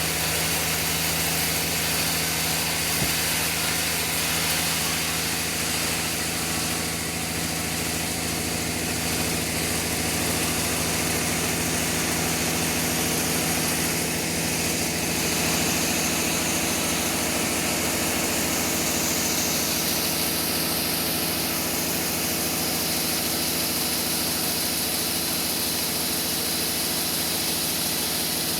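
Sawmill machinery running steadily while sawing a trembesi log into boards: a constant mechanical hum under an even, hissing noise, with no pauses.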